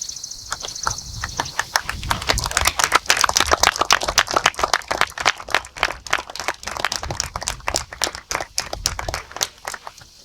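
A small crowd applauding, starting about a second in, at its fullest after a couple of seconds, then thinning out toward the end.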